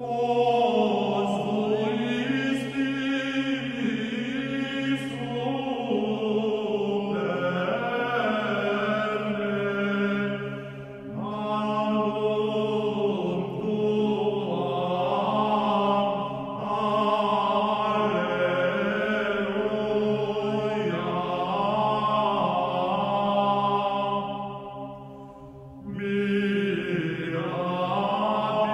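Background music of slow chanted singing over a steady, held low drone note, the melody pausing briefly twice between phrases.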